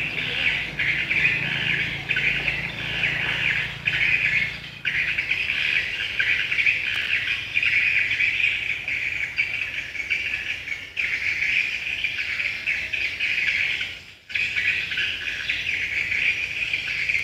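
Dense, continuous high-pitched chirping of birds, with a few brief dropouts.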